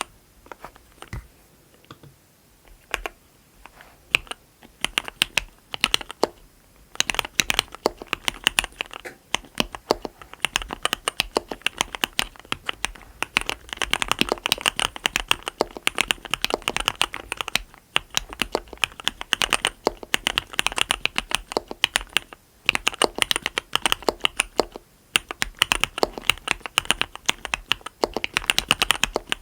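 Typing on a mechanical keyboard with Cherry RGB Black linear switches, 55 g progressive SPRiT springs, a SUS304 stainless steel plate and Leopold keycaps. A few scattered keystrokes come first, then fast continuous typing from about seven seconds in, broken by a few brief pauses.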